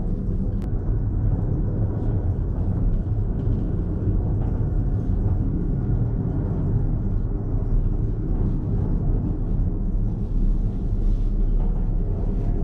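Steady low rumble inside a moving Ngong Ping 360 cable car cabin as it travels along the cable, even in level with no distinct knocks or tones.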